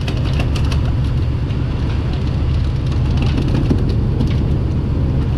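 A fishing boat's engine rumbling steadily at sea, with water rushing and splashing along the hull and scattered sharp clicks.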